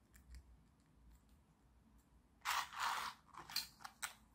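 Small 3D-printed plastic puzzle pieces scraping and clicking against each other as they are slotted together by hand: a few faint clicks, then a longer scratchy rasp a little past halfway and three shorter scrapes near the end.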